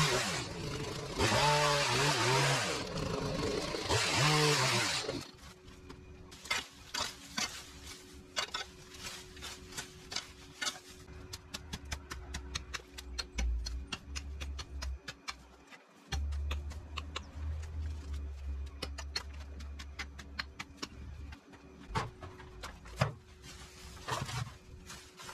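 A small engine-driven power tool revving in short bursts, which stops about five seconds in. After that come many sharp clicks and snaps as plant stems and leaves are cut, pulled and handled.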